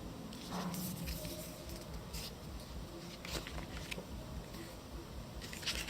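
Paper and plastic packaging being handled during an unboxing: a few short, separate rustles and crinkles, the last and loudest near the end.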